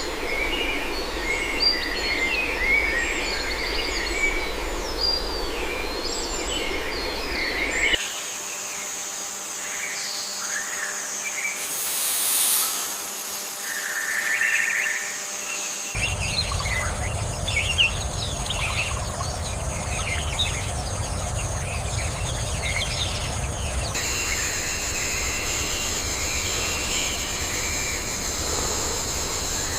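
Nature ambience of many small birds chirping and calling over a steady high insect buzz. The background changes abruptly every eight seconds or so, with a brief swell of noise near the middle.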